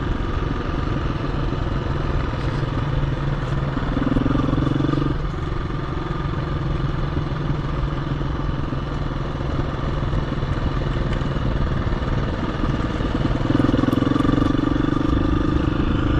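KTM 350 EXC-F single-cylinder four-stroke dirt bike engine running steadily under the rider on a trail, with a higher engine note coming in briefly about four seconds in and again near the end.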